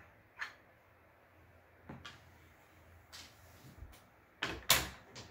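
A craps stick and dice knocking on a craps table: a few faint taps, then two sharp knocks, the loudest, about four and a half seconds in.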